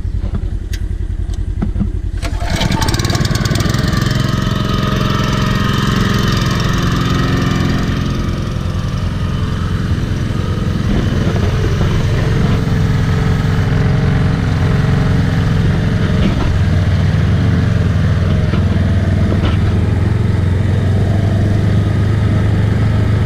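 Engine of a farm spray rig running, louder from about two seconds in and then holding steady.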